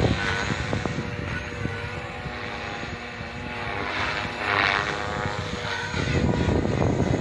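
Gaui X3 electric RC helicopter hovering, its rotor and motor giving a steady whine. The whine grows louder again about six seconds in.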